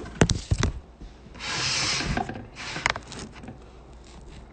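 Handling noise from a hard object and the phone: a quick run of knocks and clicks, then a rubbing hiss lasting just under a second about a second and a half in, and a few more clicks after it.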